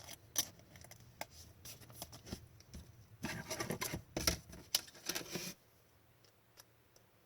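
Trading cards and pack wrappers being handled: scattered light clicks and rustling, busiest between about three and five and a half seconds in, then fading to quiet.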